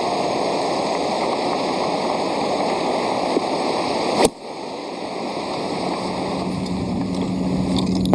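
Steady wind noise on the microphone, then a single crisp strike of an iron on a golf ball about four seconds in, after which the wind noise drops away.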